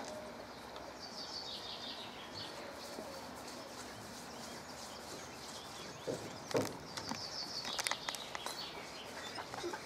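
Faint outdoor ambience with birds chirping, and a few light knocks and clicks in the second half.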